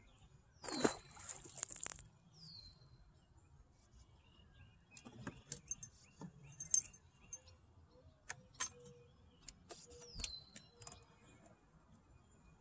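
A splash as a released bass drops back into the water about a second in, followed by scattered clicks and light rattles of fishing gear being handled on the boat deck.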